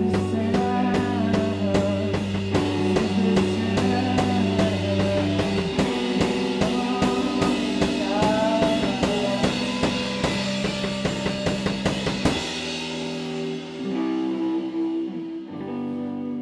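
Rock band playing an instrumental passage on drum kit, bass and electric guitar. About twelve seconds in the drums stop and the guitar chords ring out more quietly.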